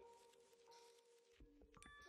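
Soft background music of ringing, held mallet-like notes. A few faint clicks come near the end.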